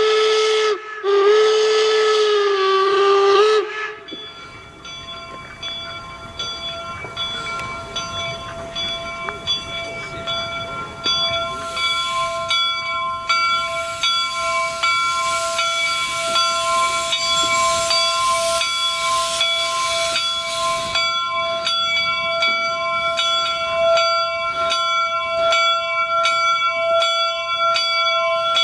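Steam whistle of the Union Pacific No. 119 replica 4-4-0 locomotive: a short blast, then a long one of about two and a half seconds. After that a locomotive bell rings steadily, about two strikes a second, over hissing steam that is loudest in the middle.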